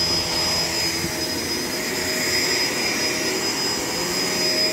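Shark LA702 Lift-Away vacuum cleaner running steadily: a high, steady motor whine over a rush of air, the hiss swelling a little in the middle.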